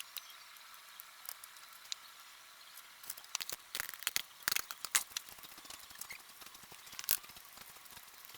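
Faint, irregular small clicks and ticks over a low hiss, typical of kitchen handling noises; they cluster between about three and five seconds in and come again near seven seconds.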